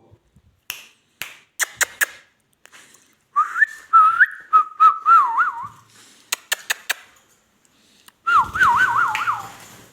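Two phrases of whistled notes with a wavering, trilling pitch, separated by a few short sharp chirps or clicks.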